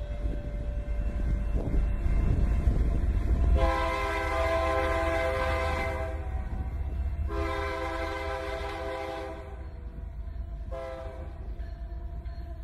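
A low, steady rumble with three long horn blasts over it, each sounding a chord of several notes for about two seconds; the third is fainter.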